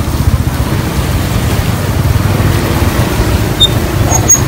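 A motor vehicle running: a steady low rumble with a fluttering, wind-like noise over it.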